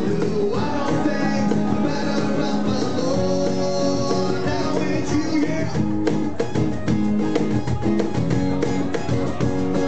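Live acoustic band: two acoustic guitars strumming and a cajón keeping the beat, with a man singing lead. After about six seconds the voice drops away and the cajón strokes stand out more over the guitars.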